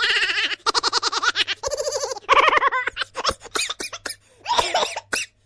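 Canned laughter sound effects played one after another: several short bursts of rapid, high-pitched laughing, each broken by brief gaps, with scattered short chuckles about three seconds in.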